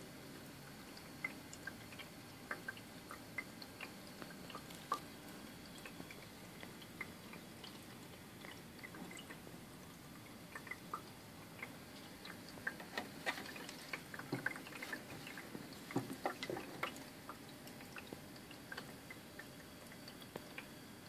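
Water dripping and plinking irregularly from a leaking ultrasonic humidifier over a faint steady hiss, the drips coming faster and louder past the middle.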